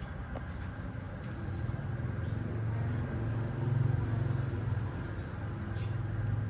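Low engine rumble of a motor vehicle, growing louder through the middle and easing off near the end, with a few faint ticks.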